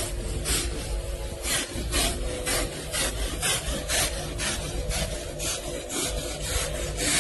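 Genesis Clean Master vacuum running in wet-cleaning mode, a steady motor hum under a rasping suck-and-rub as its upholstery nozzle is pushed back and forth over the fabric couch, about two to three strokes a second.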